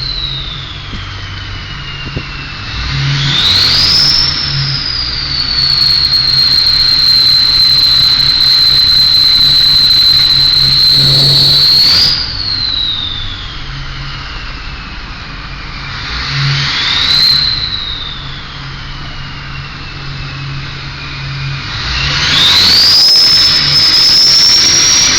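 Ford 6.0 Powerstroke V8 turbodiesel, straight-piped, being revved with its Powermax Stage 2 ball-bearing turbo whistling loudly. The whistle climbs sharply with each rev, holds high while the revs are held, and glides slowly down as the turbo spools down: a long held rev a few seconds in, a short blip in the middle, and another held rev near the end.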